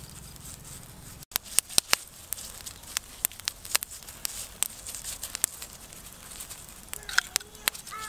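Irregular sharp crackles and pops from a charcoal fire under a spit-roasting bird being basted with sauce, over a faint steady hiss. A few short pitched calls near the end.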